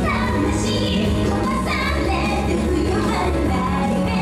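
A teenage girl singing a pop cover song live into a microphone over loud backing music.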